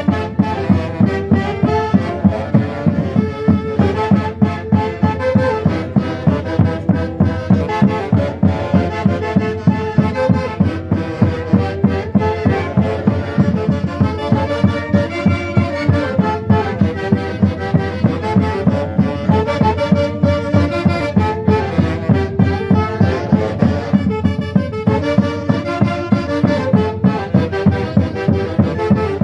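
A band playing Peruvian festival music, with a wind-instrument melody over a steady low beat.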